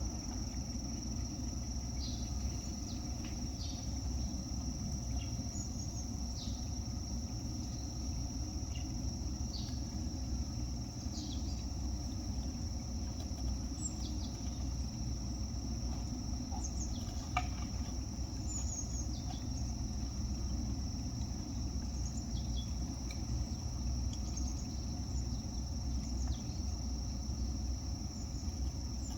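Outdoor ambience: a steady, high, unbroken insect trill over a low background rumble, with scattered short chirps and an occasional faint click.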